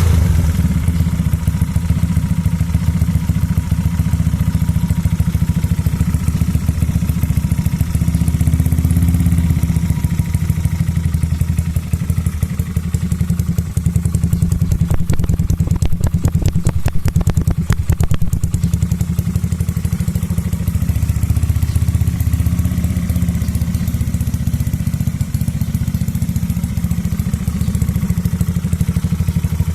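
Carbureted single-cylinder four-stroke Yamaha Mio scooter engine, bored up to about 160cc, running through a JVT V4 Teardrop aftermarket exhaust. It makes a steady, deep, pulsing exhaust note that stays at a fairly even pitch throughout.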